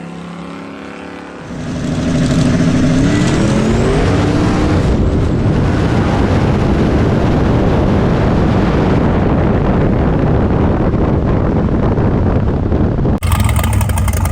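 Drag race car launching: the engine goes from a steady low run to full throttle about a second and a half in, its pitch climbing through the first few seconds, then it stays loud and dense down the track. The sound cuts abruptly to something else about a second before the end.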